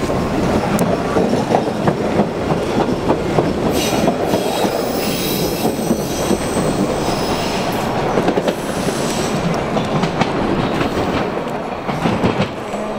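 Cleveland RTA Red Line rapid transit car running past close by on the tracks, its wheels rattling and clacking over the rails, with stretches of high wheel squeal about four to six seconds in and again around eight seconds.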